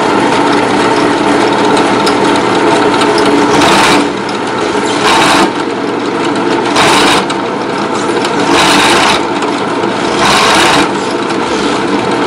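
Drill press running steadily while its bit is fed into an aluminum tube inside a briar pipe bowl, cutting in about five short scraping bursts over the motor's steady tone, starting a few seconds in.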